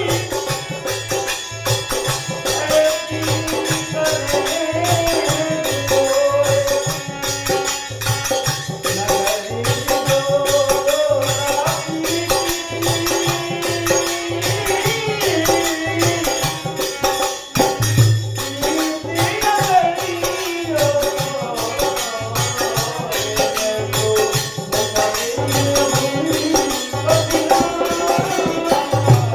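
Hindi devotional bhajan music: a wavering melody over a steady drum beat, with fast, even jingling percussion.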